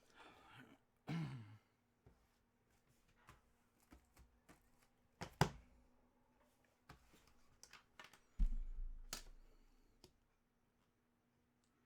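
Items being handled on a table: scattered light clicks and taps, a sharper click about five seconds in, and a dull thump about eight and a half seconds in.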